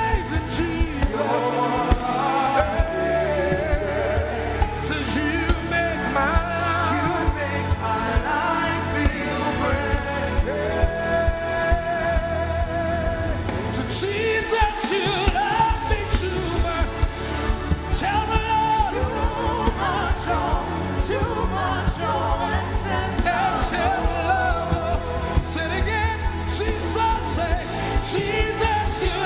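Live gospel worship music: singing with long, wavering held notes over a band with a steady bass line and drums.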